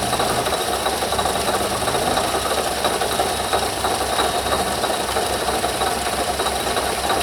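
Car engine running with a loud scraping noise from the water pump, whose bearing is failing and shedding metal fragments. A steady mechanical noise with a faint constant high whine over it.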